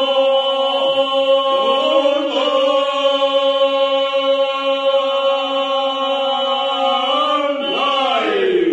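Male vocal group singing a traditional Dinaric Serbian folk song a cappella: long held notes over a steady lower drone, the voices sliding between pitches a few times. Near the end the final note slides down and the singing closes.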